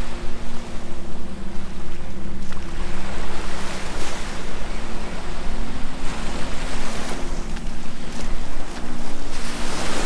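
Surf washing onto the beach, a steady hiss of breaking waves that swells louder a few seconds in and again near the end, with wind buffeting the microphone.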